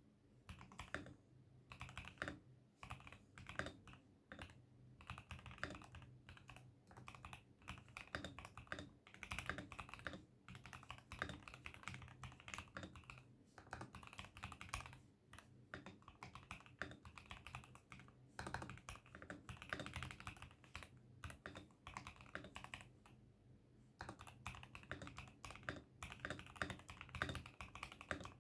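Typing on an ASUS ROG Azoth wireless mechanical keyboard: a rapid, irregular run of key clacks in bursts, with brief pauses between them.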